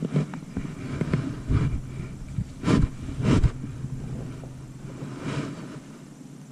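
Steady low motor hum with wind buffeting the microphone. Two loud knocks come a little under three seconds in, about half a second apart.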